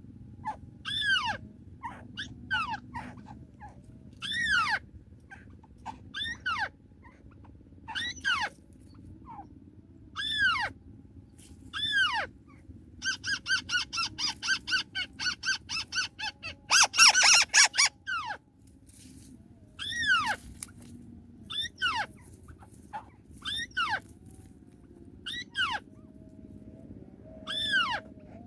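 White-browed crake calls: short, falling notes repeated every second or two, broken about halfway through by a fast run of notes and then a loud, harsh chatter.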